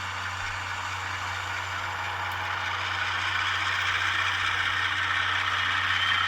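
A ScaleTrains HO-scale ES44AC model's sound decoder plays the automatic air brake set: a steady rush of air hiss that grows louder about three seconds in, over a low steady hum.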